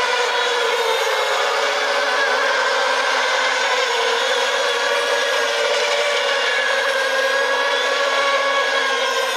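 Electric motors of radio-controlled racing model boats whining steadily, several pitches overlapping and drifting slightly up and down as the boats run.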